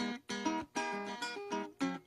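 Venezuelan cuatro played solo in a llanero pasaje: a quick run of plucked melody notes over chords, the sound dropping out briefly between a few of the notes.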